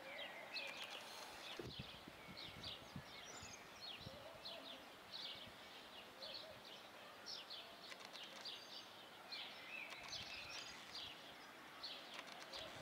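Small birds chirping in quick, repeated short notes over faint outdoor background noise, with scattered low knocks underneath.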